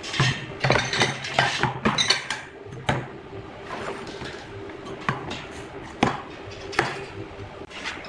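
Stainless steel cup and tube being handled and set down on a hard surface: a series of sharp metal knocks and clinks, loudest and closest together in the first three seconds, then spaced a second or so apart. A low hum runs under the first couple of seconds.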